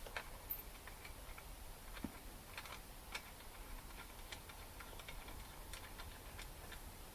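Faint, irregular light clicks and ticks of small metal carburettor parts and a hand tool being handled while a new needle valve and washer are fitted.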